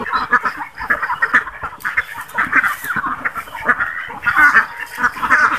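A flock of domestic ducks quacking, many short overlapping calls with no break.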